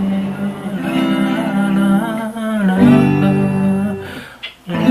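Aria electric-acoustic guitar played with the fingers, its chords ringing out slowly. The sound drops almost to nothing about four and a half seconds in, then a new passage starts loudly.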